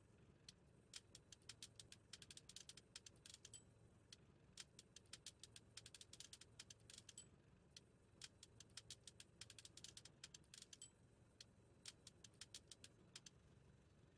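Faint typing sound effect: rapid key clicks in runs of a few seconds, broken by short pauses, over a steady low hum.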